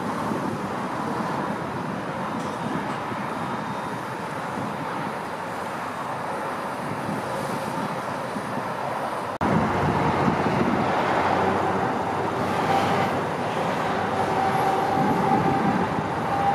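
Steady highway traffic noise. About halfway through, an abrupt cut brings a louder steady rush from a fire hose spraying water, with a faint steady whine over it.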